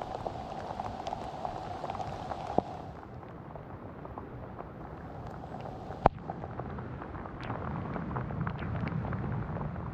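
Rain falling, with many small raindrop ticks close by. There are two sharp knocks, one about two and a half seconds in and a louder one about six seconds in, and a low rumble builds near the end.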